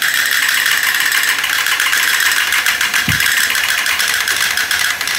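Several battery-operated tin toy M4 Sherman tanks running at once, their motors, gears and tin bodies giving a dense, steady rattle. A dull thump sounds about three seconds in.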